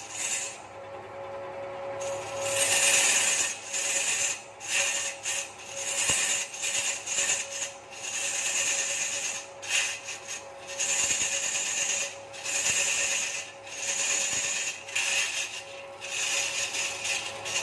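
Turning tool scraping into a large wooden blank spinning on a belt-driven wood lathe, cutting a groove. The rasping cut swells and fades every second or two and is lighter for the first couple of seconds, over a steady hum from the lathe.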